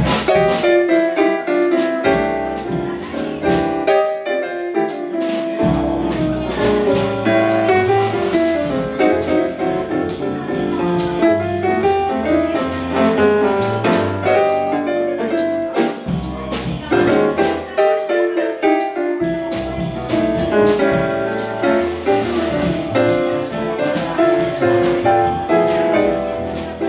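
Live jazz trio playing: a Kurzweil SP76 stage piano carries the melody and chords over an upright double bass and a drum kit. The bass drops out a few times and comes back in.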